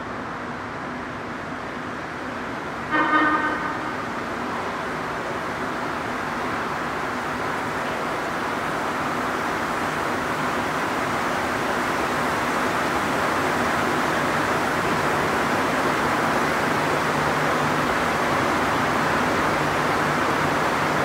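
Azur rubber-tyred Montréal Métro train gives a short horn toot about three seconds in. Its running noise then swells steadily as it pulls in and rolls past along the platform.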